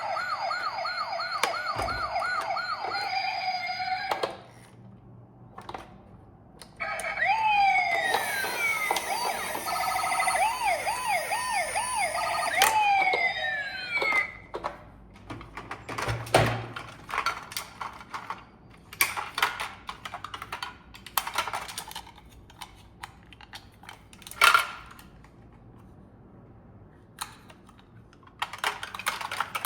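Electronic emergency-vehicle sirens: a fast warbling yelp for about four seconds, then after a short pause several sirens together, falling wails over quick warbles, for about seven seconds. The last half holds only scattered clicks and knocks.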